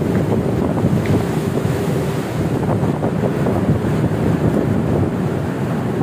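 Wind rushing and buffeting against a phone's microphone on a ship's open deck, with the wash of a choppy sea beneath it; a loud, steady, unbroken noise.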